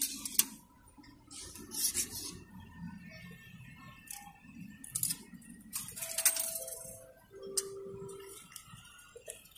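MTR ticket vending machine handling coins: a series of metallic clicks and clunks as coins drop through its mechanism. About two-thirds of the way through, a few short electronic tones step down in pitch.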